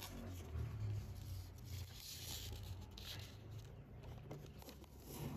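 Faint rustling and scraping of hands handling a Sony ICF-5500 portable radio, with a few small clicks, over a low steady hum.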